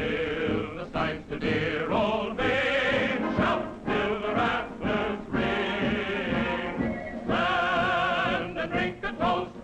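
Music: a song with several voices singing together with vibrato over a full accompaniment.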